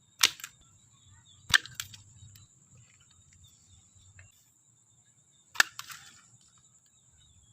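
Sharp plastic clicks and snaps from a toy bow and arrow being handled: three distinct snaps spread over several seconds, the second and third each followed closely by a lighter click.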